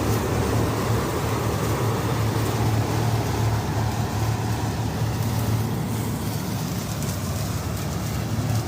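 Malkit 997 combine harvester running steadily while cutting paddy: a continuous, even engine and machinery drone.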